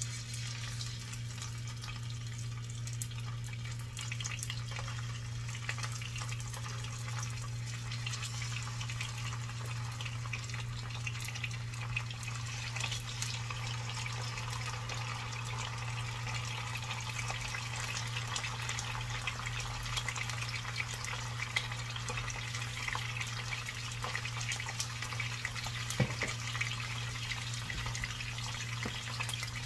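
Galunggong (round scad) frying in hot oil in a frying pan: steady sizzling with many small crackles and pops, starting as the fish go in, over a steady low hum.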